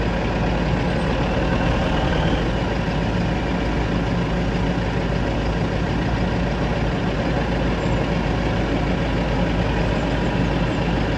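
Tractor diesel engines running steadily: the New Holland T5.115 idling under the cab, with the Massey Ferguson loader tractor working alongside as it fills the muck spreader.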